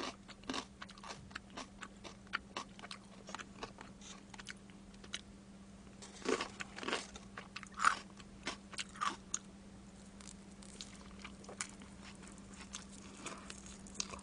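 Close-miked mouth sounds of eating fried chicken: chewing with a run of short crisp crunches, loudest in a cluster from about six to nine seconds in, over a steady low hum.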